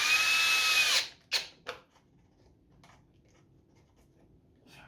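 Power drill driving a screw for about a second, its motor whine dropping in pitch as it stops; then a few sharp clicks and light handling.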